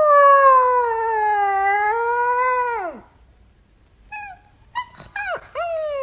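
Husky puppy howling: one long wavering howl that breaks off about three seconds in, then a short pause, a few brief yips, and the start of another howl near the end.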